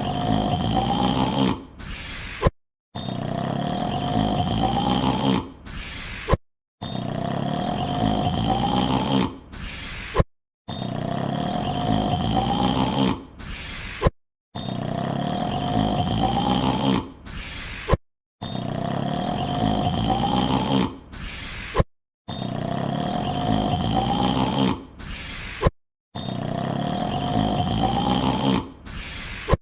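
A yawn sound clip looped end to end, about every four seconds. Each yawn lasts about two and a half seconds with a slowly rising pitch and fades out. A sharp click and a moment of dead silence come before the next repeat.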